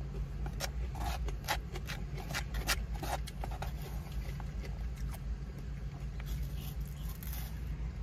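Close-miked eating sounds: a plastic fork clicking and scraping in a styrofoam takeout box, along with chewing, busiest in the first three seconds and sparser after. Underneath is a steady low rumble in the car cabin.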